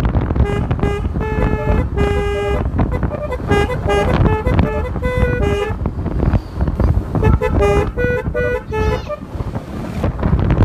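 Basuri telolet musical air horn on a motorbike playing a tune of short stepped notes, several a second, with a couple of brief breaks. Under it runs a low rumble of wind on the microphone.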